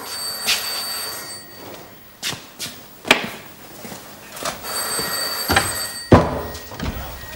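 Desk telephone ringing twice, each ring a bit over a second long, with a pause of about three seconds between. Between and after the rings come several knocks and thuds, the heaviest near the end.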